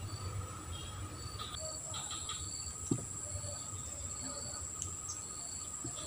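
Outdoor ambience of insects: a steady high-pitched buzz with short chirps repeating every half second or so, over a low rumble. A single sharp click comes about three seconds in.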